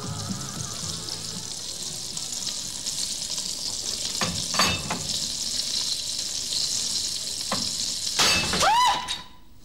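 Fat sizzling in a frying pan, a steady high hiss, with a few sharp knocks of a utensil about halfway through. Near the end a loud whistling tone sweeps in and then holds steady before cutting off.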